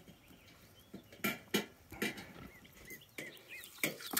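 A large pig moving about in a muddy wallow: a handful of short, separate wet slaps and squelches of mud.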